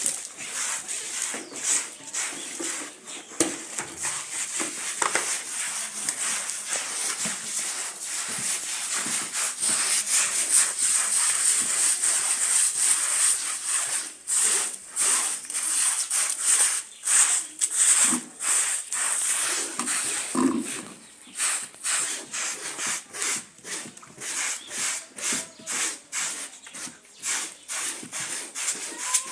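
A wet, soapy carpet being scrubbed by hand: continuous rubbing at first, then quick, even back-and-forth strokes about two a second from about halfway on.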